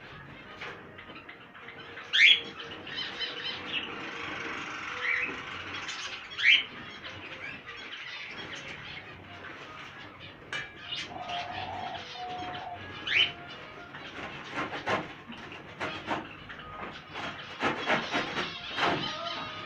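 Caged finches chirping, with a few loud, short rising calls standing out over steady twittering. Near the end, a run of knocks and scraping from a cage tray being handled.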